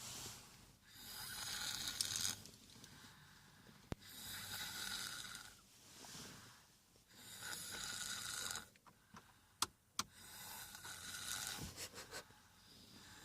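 A person snoring: four long, noisy breaths about three seconds apart, with a few sharp clicks a little past the middle.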